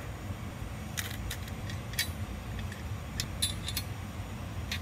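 Scattered light clicks and taps of a hard drive and a metal bar being handled and set in place on a wooden board, over a low steady hum.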